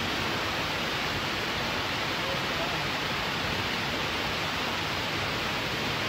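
Small waterfall pouring steadily: an even, unbroken rush of water.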